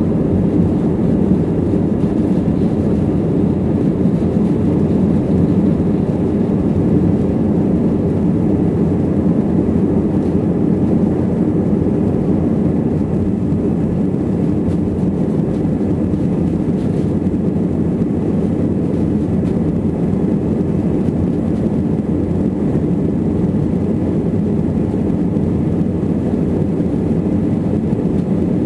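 Jet airliner cabin noise during the climb after takeoff: engines and rushing air in a steady, deep drone, easing a little about halfway through.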